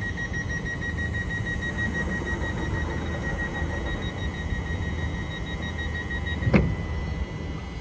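Mariyung (New Intercity Fleet) train's door-closing warning: a rapid, high electronic beeping. About six and a half seconds in the beeping stops as the sliding doors shut with a sharp thump, the loudest sound, over the train's steady low hum.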